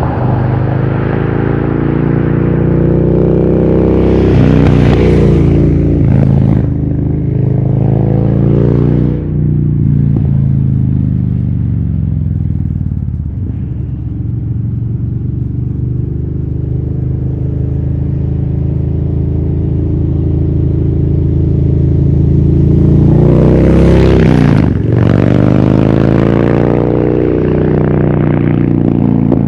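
Harley-Davidson Dyna Street Bob's V-twin engine through a FAB28 aftermarket exhaust pipe, pulling away and accelerating, its pitch climbing and dropping at each gear change. It then runs at a steady cruise before accelerating through the gears again near the end.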